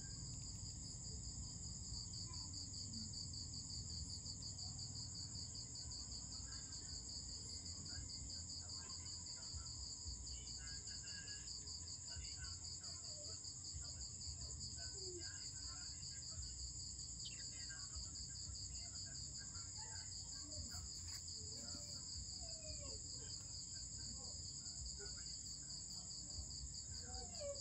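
Night-time insect chorus: a continuous high-pitched, finely pulsing trill at two pitches, over a low background rumble.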